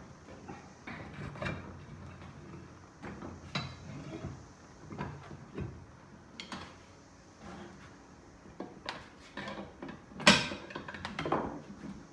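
Irregular knocks, clicks and clanks of hand tools and metal parts being handled during work on a riding mower, with one sharp, loud knock about ten seconds in.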